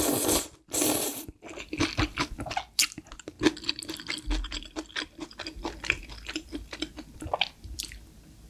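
Close-miked slurping of spicy stir-fried ramen noodles, two loud sucking slurps in the first second or so, then a long stretch of wet chewing with many small mouth clicks that fades near the end.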